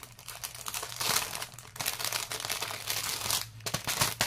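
Clear plastic packaging of a diamond-painting kit crinkling and rustling as the rolled canvas is handled and slid out, with a couple of sharp clicks near the end.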